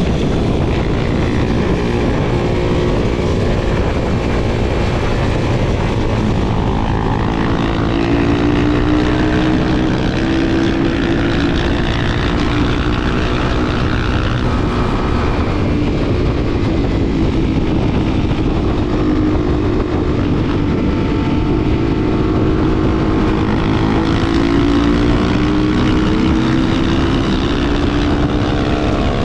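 Honda XR250 Tornado's single-cylinder four-stroke engine running under way, its pitch rising and falling gently with the throttle over a steady rush of noise.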